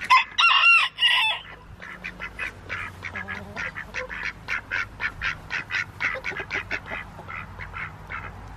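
Ducks calling among a flock of chickens: a few loud honking calls in the first second and a half, then a steady run of short quacks, about three or four a second.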